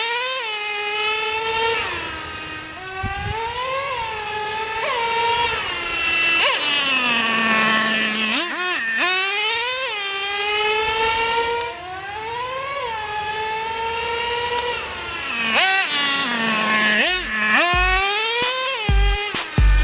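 Traxxas Revo 3.3's small two-stroke nitro engine, new and still in break-in, revving high as the RC truck makes repeated speed passes. The pitch climbs as it comes close, drops sharply as it goes by, and settles to a steady lower note between runs.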